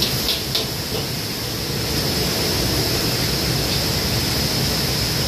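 Steady roar of a commercial gas wok burner at full flame, with a few quick metal clinks of the ladle against the wok in the first half-second.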